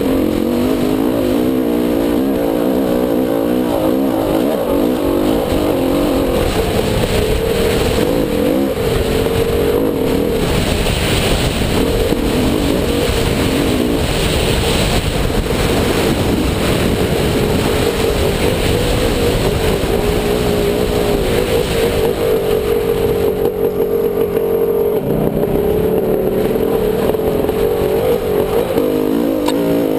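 Dirt bike engine running on a trail ride, heard close up from a camera on the bike, its pitch rising and falling as the throttle changes.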